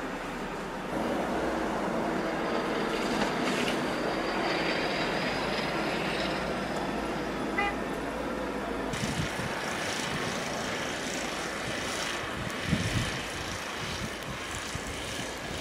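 Outdoor noise of a heavy snowstorm: a steady rushing hiss with a faint steady vehicle engine hum. About nine seconds in the sound changes to gusty low rumbling with a couple of brief knocks.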